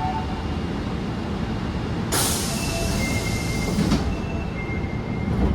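Osaka Metro Tanimachi Line 22 series subway train running, a steady rumble of wheels on rail. About two seconds in, a hiss starts abruptly and lasts about two seconds, carrying faint high squealing tones.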